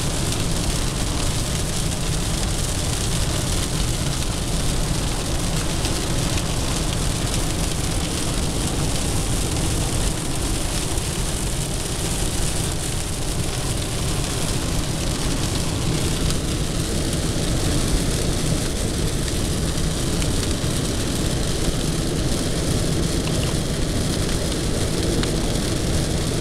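Heavy rain and road spray on a moving car, heard from inside the cabin: a steady rushing noise of rain on the body and windscreen, together with tyres on the flooded road.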